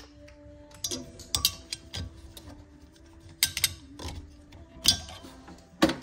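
Irregular sharp clicks and light knocks of parts and tools being handled at a refrigerator compressor, with a quick cluster about three and a half seconds in. Faint music plays underneath.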